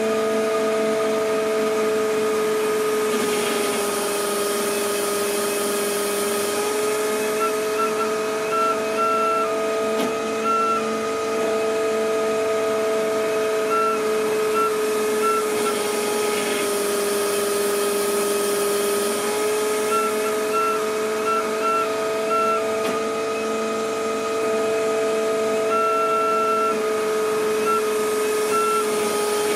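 Hydraulic test bench's pump unit running with a steady whine. Its pitch dips slightly and comes back up twice as the load on the proportional valve changes, while a higher tone flicks on and off over it.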